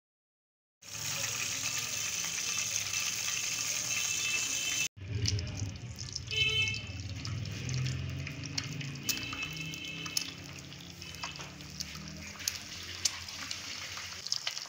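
An egg frying in hot oil in a flat pan: a steady sizzle with many small spitting crackles. It starts after about a second of silence and breaks off briefly about five seconds in.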